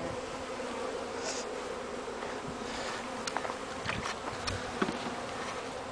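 Steady buzzing hum of a colony of about ten thousand honeybees flying around their hive after being newly installed from a package. A few light clicks come in over the hum in the second half.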